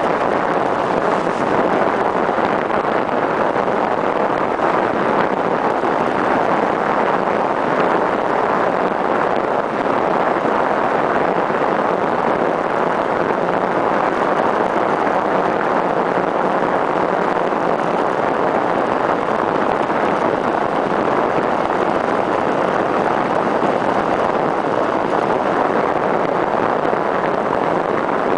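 Steady rush of wind over the microphone of a camera mounted on a bicycle's stem during a fast downhill ride.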